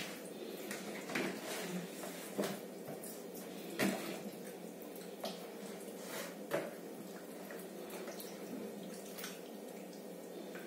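Hands squishing and turning raw chicken pieces in marinade in a plastic bowl: irregular wet squelches and slaps, the loudest about four seconds in.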